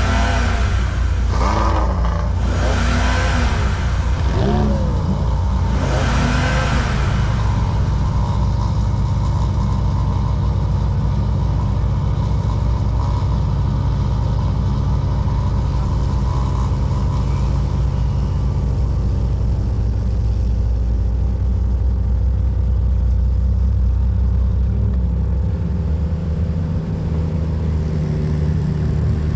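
Car engines running: several revs rise and fall in the first seven seconds or so, then a steady low idle. The engine note changes near the end as the car pulls away.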